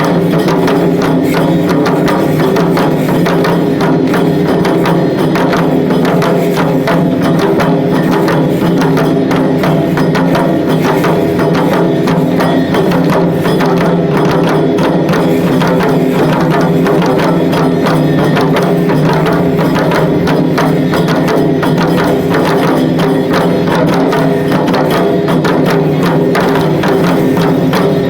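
Lion-dance festival drumming: loud, rapid, unbroken percussion with sharp, wood-block-like clacking strikes over the drum beat.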